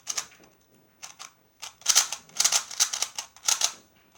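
Plastic pyraminx speed cube being twisted fast during a timed solve, its pieces clicking: a few scattered clicks at first, then quick runs of clicks from about one and a half seconds in.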